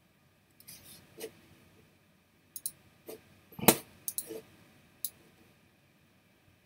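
A few faint, irregular clicks and taps, about eight in all, with the loudest one about halfway through.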